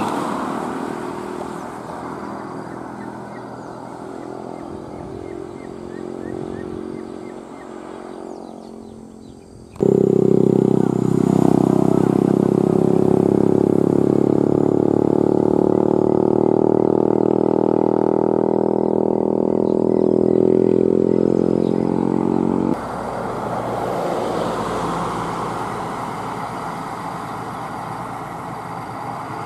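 Motor vehicles on a road. An ambulance's engine fades as it drives away. After a sudden cut about ten seconds in, a vehicle engine runs loud and steady close by for about thirteen seconds. After another cut, quieter engine noise returns as a loaded truck approaches.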